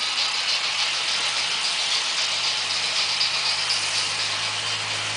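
Märklin model trains running on metal track: a steady rattling clatter of wheels. A low motor hum joins about halfway through and grows stronger near the end.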